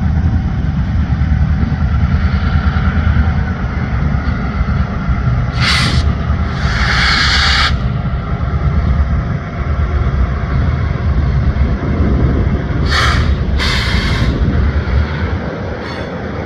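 Diesel freight locomotives working a train across a steel trestle: a steady low engine rumble. Two pairs of brief, sharp hissing bursts break in, one pair about six seconds in and another about thirteen seconds in.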